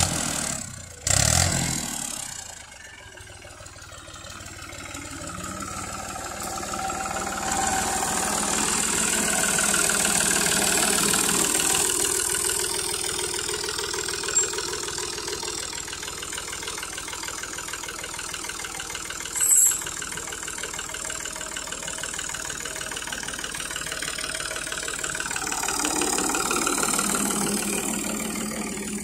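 Al-Ghazi tractor's diesel engine running steadily, its revs and loudness swelling up twice, once in the first half and again near the end. There is a loud bump near the start and a single sharp click about two-thirds through.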